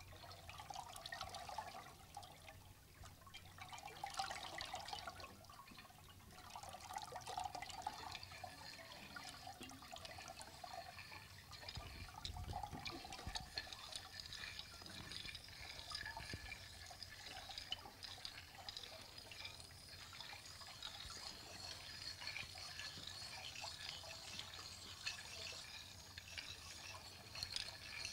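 Water trickling and dripping from hands into basins, several at once, with scattered small clicks.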